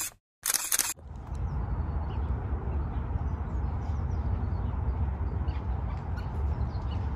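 A short, loud burst of hissing noise about half a second in, then outdoor ambience picked up by a phone's microphone: a steady low rumble with faint, scattered bird chirps over it.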